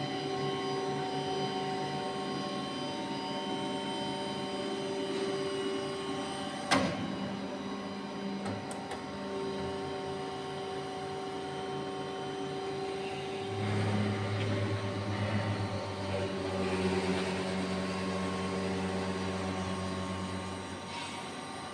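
Special-purpose CNC turning machine running: a steady motor whine made of several tones, with a sharp click about seven seconds in. A deeper, louder hum joins about halfway through and stops shortly before the end.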